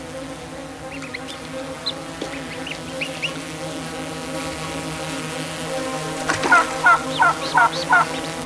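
Steady buzz of a small multirotor drone hovering, with a few thin duckling peeps in the first half. Near the end come five loud quack-like calls in quick succession.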